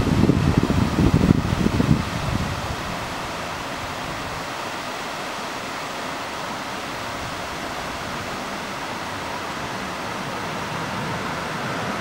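Steady rushing and splashing of a rocky mountain waterfall cascading over boulders. A louder, gusty low rumble sits under it for the first two seconds, then dies away.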